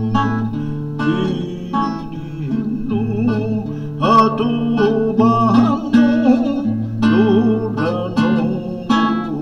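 Classical guitar playing a slow melody, the notes wavering with vibrato, over an accompaniment of long, steadily held bass notes.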